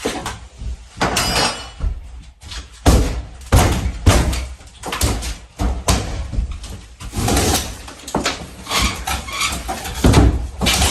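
Hand demolition inside a mobile home: irregular knocks, bangs and clattering as interior materials are pried loose and pulled apart, with the loudest hits about three, four and ten seconds in.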